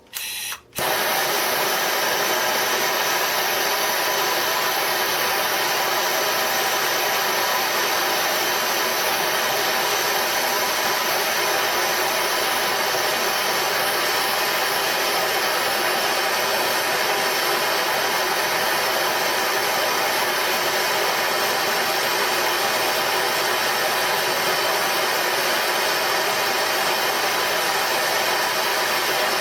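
A heating tool running steadily for nearly half a minute, heating a rivet so it can be set hot; it starts about a second in with an even rushing hiss and cuts off abruptly at the end.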